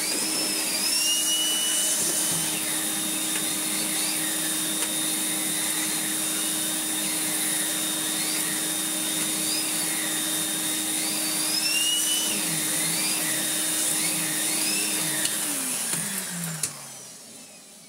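Electrolux Z350E cylinder vacuum cleaner running steadily with a red turbo brush head on a metal tube, a high whine in it rising and falling several times. About fifteen seconds in the motor is switched off and runs down over about two seconds.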